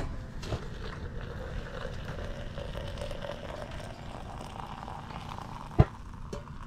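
Hot water being poured from a stainless steel pot into a stainless steel mug, over a low steady rumble, with one sharp metallic clink near the end.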